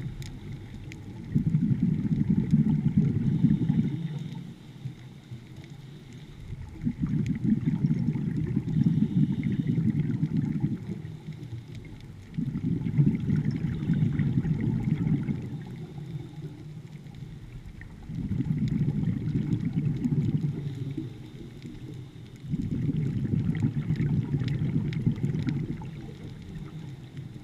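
Scuba diver's regulator exhaling, heard underwater: five bursts of bubbling rumble, each about three seconds long, coming about every five to six seconds with quieter gaps for the in-breaths.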